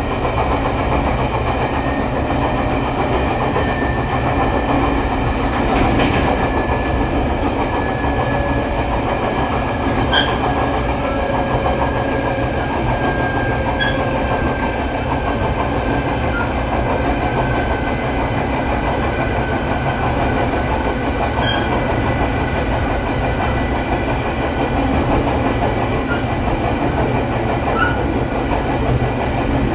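Running sound of an E500 electric-locomotive push-pull express train slowing from about 75 km/h: steady wheel-and-rail rumble with a faint whine that slowly falls in pitch. The wheels are out of round, giving a flat-wheel beat.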